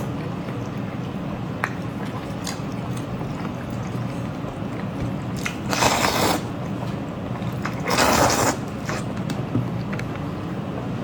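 Close-miked eating sounds: chewing and biting with small clicks, and two louder, noisier bursts about six and eight seconds in, over a steady low hum.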